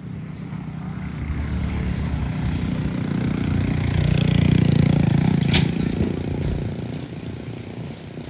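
A small engine running, growing louder to a peak about halfway through and then fading, with one sharp click just after the peak.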